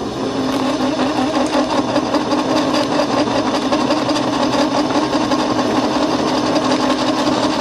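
A small homemade CNC lathe turning S45C steel: the spindle drive runs under heavy cutting load with a steady tone and a dense rattle from the carbide tool cutting.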